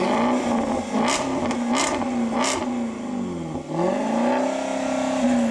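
Supercharged Jaguar XK V8 engine running while the car is driven, its pitch steady at first, then dropping about halfway through and climbing back as the revs fall and pick up again. Three short sharp clicks come in the first half, about two-thirds of a second apart.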